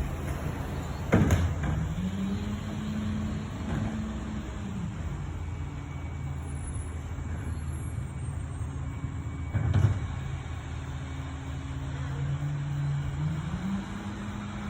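Peterbilt 379 garbage truck's diesel engine running, revving up for a few seconds early on and again near the end. Two sharp bangs, one about a second in and another about ten seconds in.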